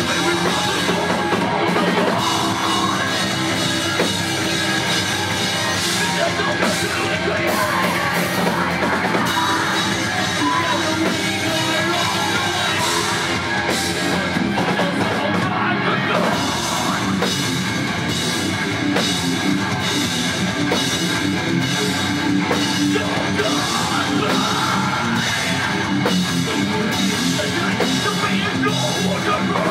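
Live rock band playing loud and steady: electric guitars, bass and a drum kit, with regular drum and cymbal hits. A vocalist sings into a handheld mic over the band.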